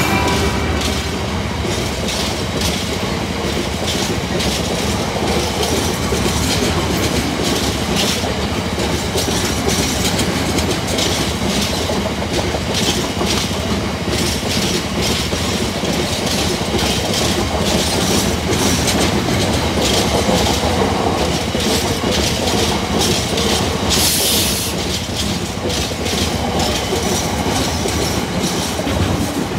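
Container-laden wagons of an intermodal freight train rolling past over a level crossing at speed: a steady rumble with rapid clickety-clack of wheels over the rail joints. Near the end, a short burst of high hiss.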